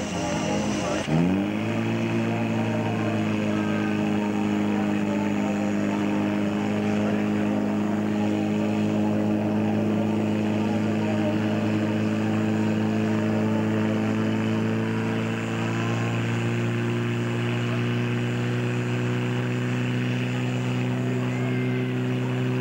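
Portable fire pump engine revving up about a second in, then running steadily at high revs while it pumps water into the hose lines.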